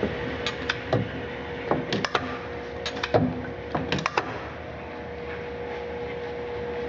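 A steady electric hum with about a dozen irregular sharp metallic clicks and knocks, bunched in the first four seconds, as metal machine parts are handled.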